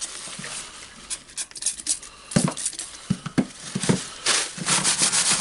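Paper shop towel rubbed over the housing of a Hilti SF4000 drywall screw gun's auto-feed attachment, in short back-and-forth strokes, with a few knocks as the tool is shifted on the bench. Near the end the rubbing turns quick and steady.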